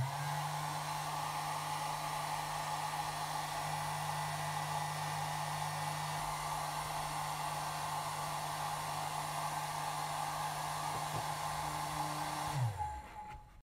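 Handheld hair dryer running steadily, blowing onto a vinyl phone skin to warm it; it is switched off near the end and its motor winds down, falling in pitch.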